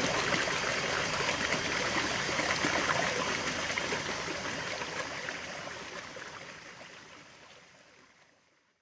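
Shallow stream rushing over a small rocky cascade, a steady wash of water that fades out over the last few seconds.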